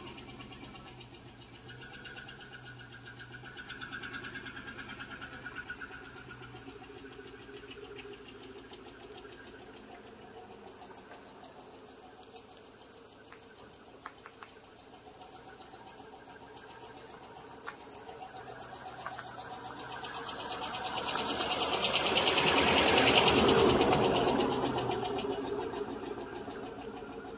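Chevrolet Suburban driving past on the campground road: its engine and tyres grow louder, are loudest about 23 seconds in, then fade away. Under it runs a steady high-pitched insect chorus.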